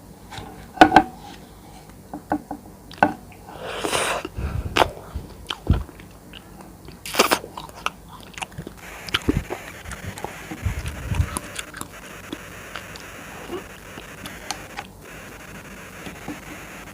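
Close-miked eating sounds of soft jelly: wet bites, chewing and mouth clicks. There is a longer noisy swell about four seconds in and a sharp louder burst about seven seconds in, then softer steady chewing.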